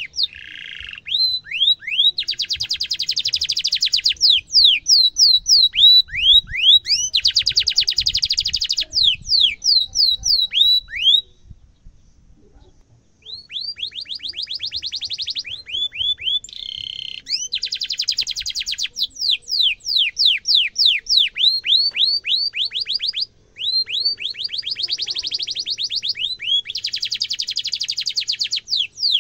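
Domestic canary singing vigorously. It gives series of sharp, quick downward-sweeping chirps, about three or four a second, alternating with fast rolling trills, and breaks off for about two seconds near the middle.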